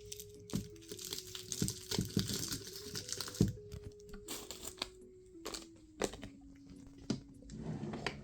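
Small personal items being handled and packed into a plastic container: crinkling of wrappers and packaging with sharp clicks and knocks as things are set down, over soft background music with held notes.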